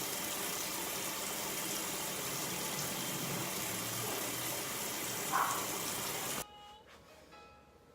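Shower spray running as a steady hiss of water, cutting off abruptly about six and a half seconds in.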